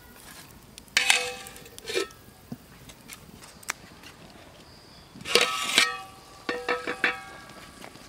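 A metal plate lid clanking and ringing against an aluminium cooking pot: one sharp clank about a second in, a longer scraping clatter a little past halfway, then several lighter clinks.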